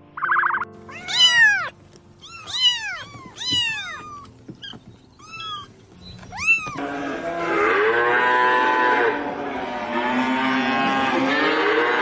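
Kittens mewing: a run of short, high mews that rise and fall in pitch. From about seven seconds in, many overlapping mews run together into a continuous wavering chorus over soft background music.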